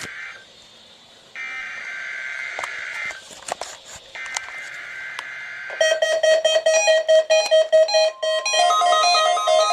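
NOAA Weather Radio SAME data bursts, a harsh digital screech: the end of one burst, then two more of about a second and a half each, with short gaps between them. These bursts open a Required Weekly Test. About six seconds in, a weather alert radio starts its electronic alert melody of quick repeating beeped notes.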